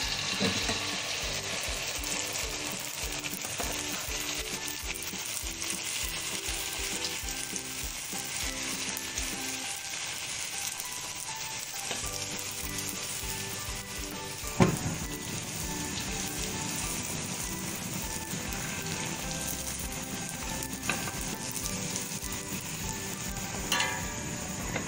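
A puri deep-frying in hot oil in a steel karahi, with a steady sizzle. One sharp knock comes about halfway through, and a lighter one near the end.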